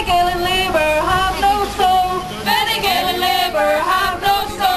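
Women singing a song without words spoken, long held notes that waver and step between pitches, with brief breaths between phrases.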